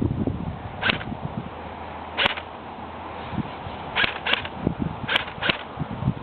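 Airsoft guns firing single shots: six sharp pops spaced irregularly, the last four coming in two quick pairs.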